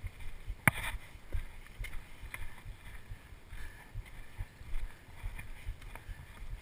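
Irregular low rumbling wind and body-movement noise on a chest-mounted action camera's microphone, with a single sharp click under a second in.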